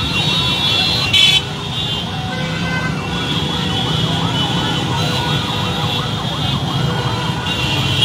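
A siren yelping in quick repeated up-and-down sweeps, about two a second, over a dense street din of traffic and crowd, with a short horn blast about a second in.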